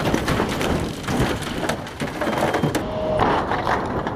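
Light airplane's airframe hitting the ground in a crash test: a dense, rapid run of cracks, crunches and rattles of metal and debris.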